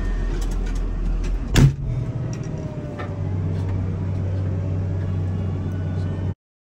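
Komatsu wheel loader's diesel engine running steadily, with one loud clunk about a second and a half in, after which the engine note settles a little higher. The sound cuts off abruptly near the end.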